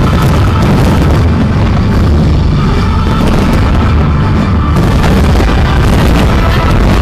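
Loud show music with fireworks booming over it, with sharper bangs coming more often near the end.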